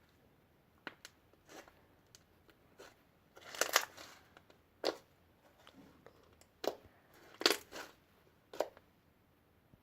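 Slime being squeezed and pressed by hand, giving irregular short squishes and pops. The loudest come in two clusters, about a third of the way in and again about three quarters of the way in.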